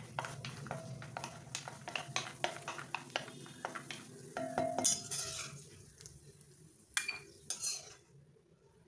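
Wooden spatula stirring cashews frying in hot fat in an iron kadai: frequent taps and scrapes against the pan over a light sizzle. A few louder scrapes come about five and seven seconds in, and the sound dies away near the end.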